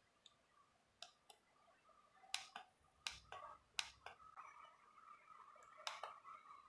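Several sharp clicks from the keypad buttons of a handheld video borescope being pressed, spaced irregularly.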